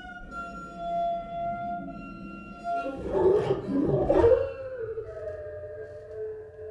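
Electronic music: sustained pitched drones, with a denser swirling cluster of sound swelling up in the middle before settling back into held tones.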